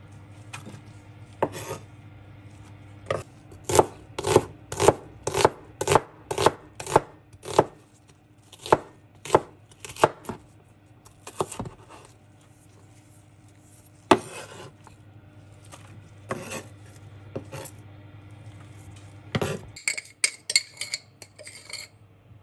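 Kitchen knife slicing a red onion on a wooden cutting board: a run of sharp knocks at about two a second, then slower scattered cuts. Near the end comes a quick run of lighter, sharper clicks.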